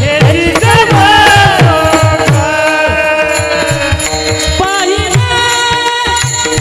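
Marathi devotional kirtan song (panchapadi): a singer's voice over a held harmonium-like drone, with a hand drum striking bass strokes that drop in pitch roughly twice a second.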